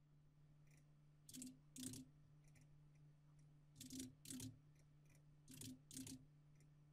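Faint clicks from working at a computer, coming in three pairs about half a second apart, over a faint low steady hum.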